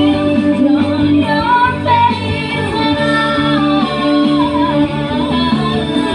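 A woman singing with guitar accompaniment, holding long wavering notes over steady low chords.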